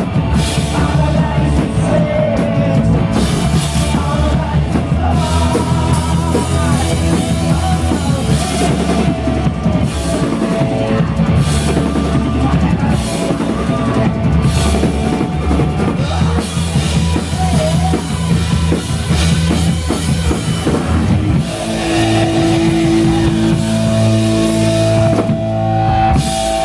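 Live punk rock band playing loud: pounding drum kit and distorted electric guitars. About 21 seconds in the drumming stops, leaving held, ringing guitar and bass notes.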